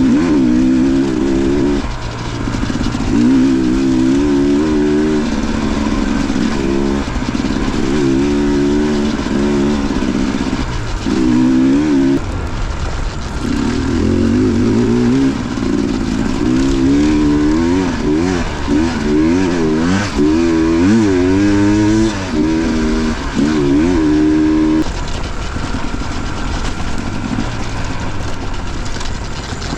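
Dirt bike engine revving up and down as the throttle is opened and rolled off over and over, in short surges of rising and falling pitch, then running steadier and lower for the last few seconds.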